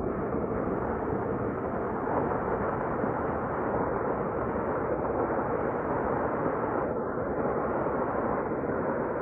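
Steady, muffled rushing of fast-flowing floodwater, an even noise that stays unchanged throughout.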